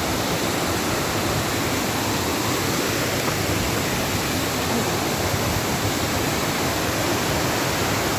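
Waterfall rushing steadily: a loud, even, unbroken wash of falling water.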